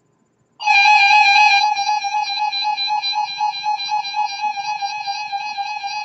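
Weather alert radio sounding a steady, shrill alert tone with a slight waver, coming on suddenly about half a second in. It signals that the radio has been activated by a broadcast alert, here the Required Weekly Test.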